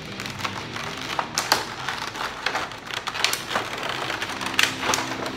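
Clear plastic blister packaging crackling and crinkling as it is handled and pulled apart, a quick run of sharp, irregular crackles and clicks.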